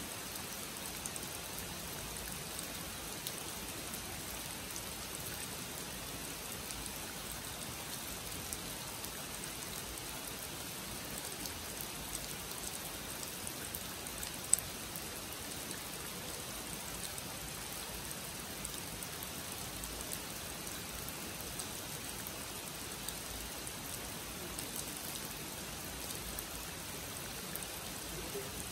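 Steady rain falling on a pond and the surrounding foliage, with scattered drop ticks and one sharp, louder tick about halfway through.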